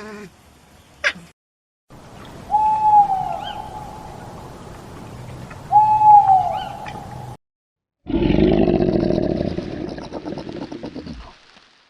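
Animal calls: two short pitched calls about three seconds apart over a steady background hiss, then a louder, longer, lower call about eight seconds in.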